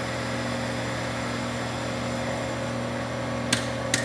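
American Turnmaster ATV-618-TR toolroom lathe running, spindle turning and power cross slide feeding out: a steady electric hum with several held tones. Two sharp clicks come near the end as the feed control is switched to reverse the cross slide.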